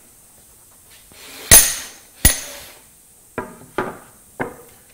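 Two loud, sharp knocks about three-quarters of a second apart, then three lighter knocks: wooden jig pieces and a board being set down and butted together on the aluminium sliding table of a panel saw that is not running.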